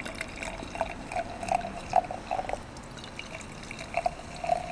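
Wine poured from a bottle into a glass, with irregular glugs in two spells: several in the first half and a couple more near the end.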